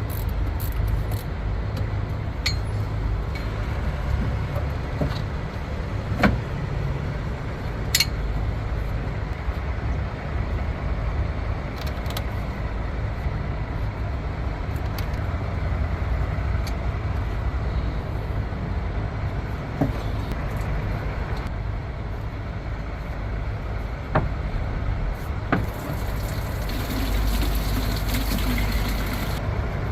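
Steady low rumble of an idling engine, with a handful of short sharp clicks and knocks scattered through it.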